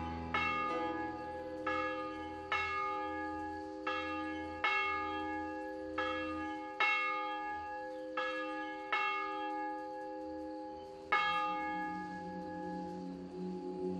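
Church bells ringing, struck about once a second, each stroke's tones ringing on and overlapping the next. The loudest stroke comes near the end, after a short pause.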